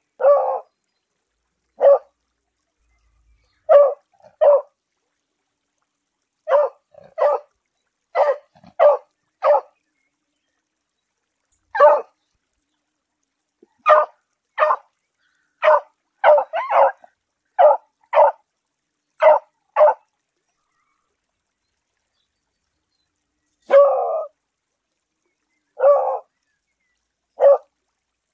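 A beagle barking: about twenty short, sharp barks, single or in quick pairs and runs, with dead silence between them and a slightly longer bark a little before the end.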